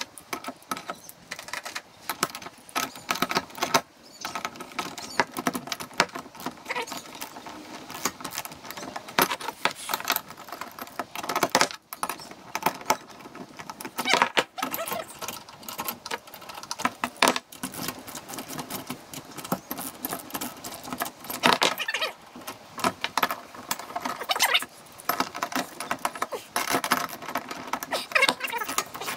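Hand spanners and a ratchet working steel bolts on a spreader bracket: repeated metal clinks and clicks, with short runs of ratchet clicking and brief ringing from tools knocking the metal, as the bolts are undone and done up again.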